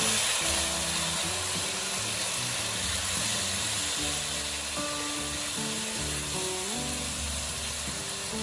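Pork ribs and garlic sizzling in oil in a wok, soy sauce just added, with a steady frying hiss. Background music with a simple stepping melody plays alongside.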